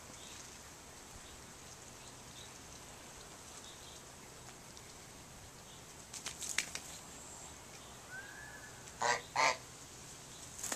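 Domestic goose honking twice in quick succession, loud, about nine seconds in. A little brief rustling comes a few seconds before.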